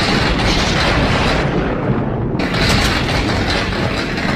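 A loud, continuous rumbling, crackling noise with a deep low rumble. It grows brighter and harsher about two and a half seconds in.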